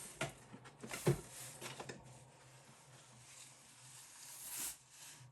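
Packaging being handled and rustled as accessories are taken out of the box, with several sharp knocks in the first two seconds. The rustling swells just before it stops near the end.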